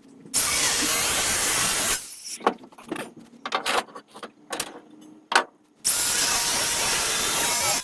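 Two bursts of welding, each a steady, even crackling hiss about two seconds long, with a few sharp metallic clicks and knocks in the pause between them.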